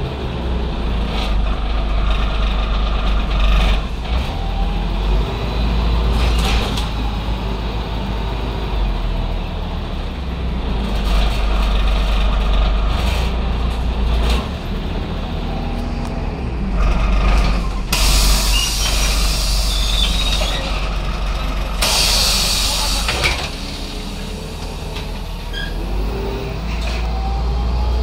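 LAZ A183D1 city bus's diesel engine rumbling steadily under light rattles of the bus body, with two bursts of compressed-air hiss from the bus's pneumatics, each about a second and a half long and a few seconds apart, late in the stretch.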